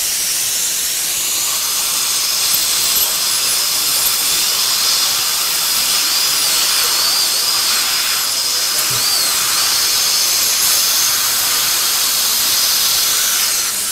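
High-speed dental handpiece (dentist's drill) running steadily as its bur cuts through a broken dental bridge, a loud hiss with a thin high whine that wavers in pitch as the bur bites.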